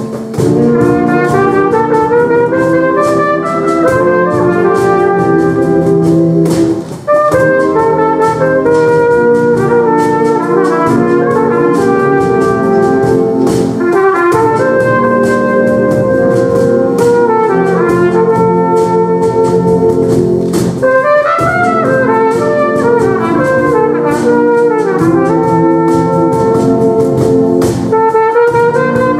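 Concert wind band playing, trumpets and clarinets to the fore, loud throughout, with a short break about seven seconds in.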